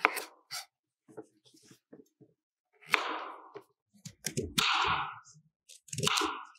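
Chef's knife slicing through crisp raw green papaya on a bamboo cutting board: a sharp cut at the start, then several crunchy cuts in the second half, some ending in a dull knock of the blade on the board.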